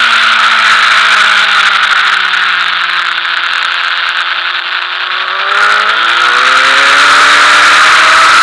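Sport motorcycle engine heard from the rider's seat with strong wind rush. The revs fall steadily for the first five seconds or so as the bike slows and leans through a corner, then rise again as it drives out onto the straight.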